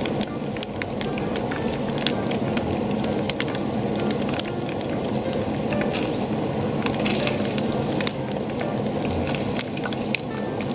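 Batter-coated thick fried tofu (atsuage) deep-frying in a pan of hot oil: a steady bubbling sizzle with scattered sharp pops and crackles.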